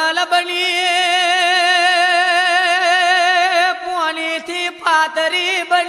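A man singing a regdi, the Gujarati devotional folk song: one long held note with a wavering vibrato for about three and a half seconds, then shorter sung phrases.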